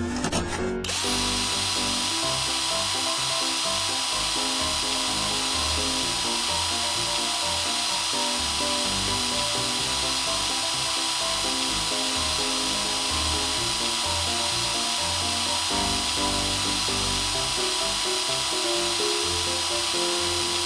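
Cartoon drill truck's drill running steadily, a continuous power-drill sound effect that starts about a second in, over background music.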